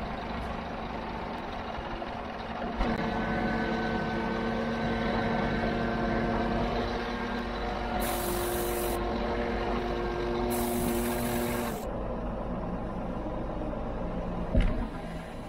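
Scania R440 diesel engine idling, then about three seconds in it picks up to a steady higher speed with a whine while the tipper trailer body is being raised. Two air hisses of about a second each come around the middle. The whine drops away near the end, and a single knock follows.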